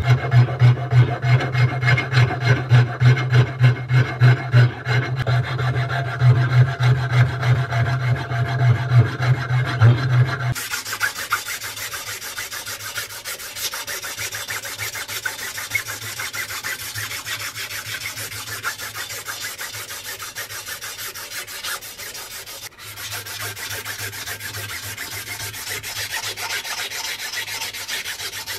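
A flat metal file rasping back and forth across a wooden cleaver handle in strokes of about two a second. About ten seconds in it changes abruptly to sandpaper rubbing quickly over the handle, a steadier, finer hiss.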